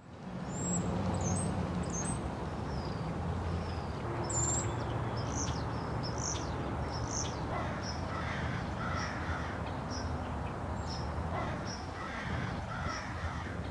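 Crows cawing now and then, with many short high chirps of small birds, over a steady low rumble of outdoor background noise.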